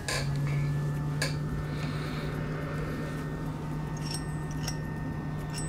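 A steady low hum sets in at the start and runs on, with a few light clinks and taps of small tools against cracked phone back glass.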